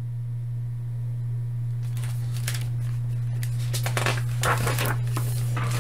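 Pages of a hardcover picture book being turned: paper rustling and sliding in several short strokes from about two seconds in. A steady low hum runs underneath.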